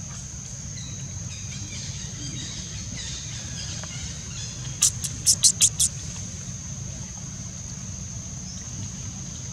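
Outdoor ambience: a steady low rumble under a steady high-pitched drone, with a quick run of about six sharp clicks about five seconds in.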